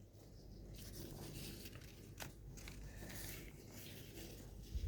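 Quiet room tone, a faint steady hiss, with one soft click about two seconds in.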